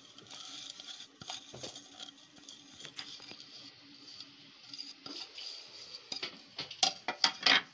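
Spices scraped off a plate into a bowl of gram flour: scratchy rustling with scattered clinks of the plate on the bowl, and a few sharper, louder clinks near the end.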